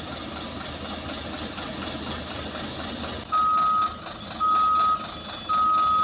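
Heavy diesel engine running steadily; about three seconds in, a vehicle's reversing alarm starts beeping, three even single-tone beeps about a second apart.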